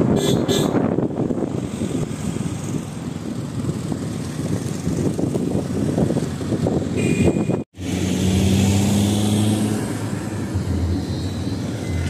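A moving car's road and wind rumble, heard from inside the car. The sound cuts out for a moment about two-thirds of the way in and comes back as a steadier low engine hum.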